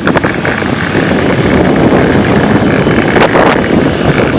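Golf cart driving along a wet paved cart path, its running and tyre noise mixed with heavy wind noise on the microphone, with a short knock at the start and another about three seconds in.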